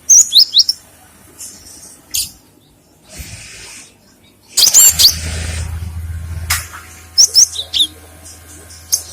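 Cinereous tit (gelatik batu) calling: three quick bursts of sharp, high, down-slurred chirps, a few notes each, spaced a few seconds apart.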